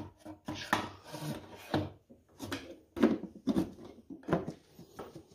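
Plastic airbox cover of a Polaris Sportsman 570 ATV being pressed and worked down onto its airbox: a string of irregular plastic knocks and scraping rubs.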